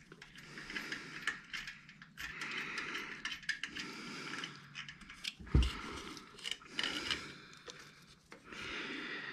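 Metal parts and hand tools being handled during ATV repair work: scattered light clinks and rattles, with one louder thump a little past halfway.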